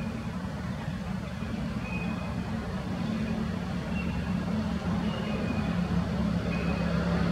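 Steady low motor hum, like an engine running, growing slightly louder over the seconds, with a few faint short high chirps now and then.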